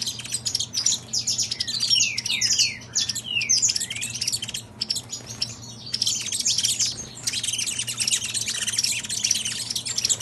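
Caged saffron finches (canário-da-terra) singing: rapid chirps with several falling whistled notes in the first few seconds, a short pause, then a dense, fast twittering song through the second half.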